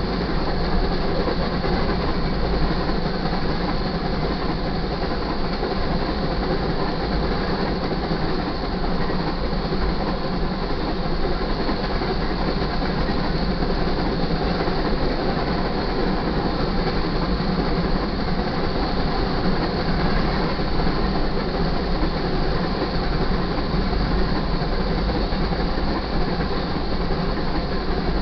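Freight cars of a grain train rolling past at speed: a steady, loud rumble and rattle of steel wheels on the rail.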